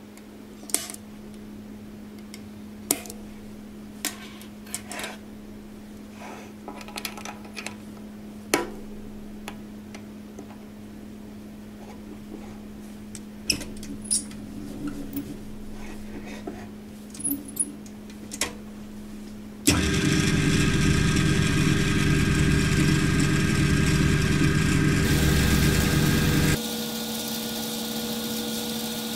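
Small steel parts clicking and knocking against a steel machine table and vise as they are handled, over a steady low hum. About two-thirds of the way in, a drill press starts suddenly and runs steadily, drilling into the part clamped in its vise. Near the end it drops to a quieter, steadier running sound.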